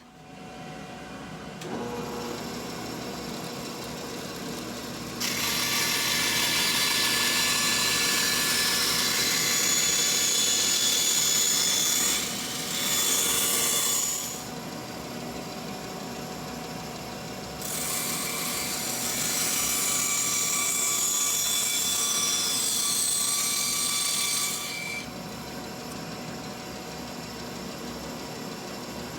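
Handheld trim router spinning up and running with a steady whine, then cutting wood freehand in three stretches of louder, higher rasping, the longest about seven seconds, and running free between and after the cuts.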